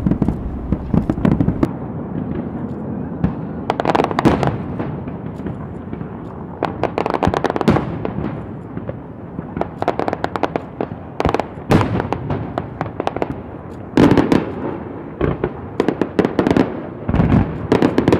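An aerial fireworks display: shells bursting in quick volleys of sharp bangs and pops, a new cluster every couple of seconds over a continuous low rumble.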